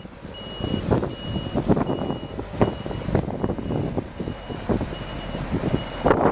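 Truck reversing alarm beeping steadily, about one high beep every three-quarters of a second, over the rumble and crackle of a Scania heavy truck manoeuvring.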